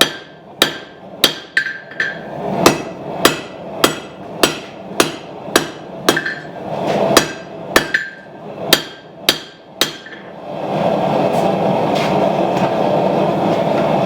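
Hand hammer striking hot steel on an anvil, blows coming about every half second with a short metallic ring after each, as a knife blade is thinned down. The hammering stops about ten seconds in and a steady rushing noise takes over.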